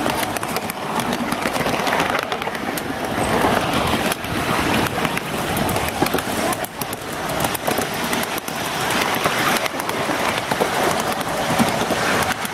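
Miniature ride-on train rolling along its track, the steel wheels and cars giving a steady rumble and clatter with many small clicks and knocks.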